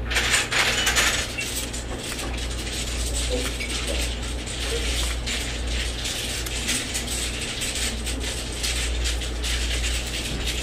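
A balut, a boiled fertilised duck egg, being cracked and peeled by hand: a dense run of small shell crackles and clicks over a steady low hum.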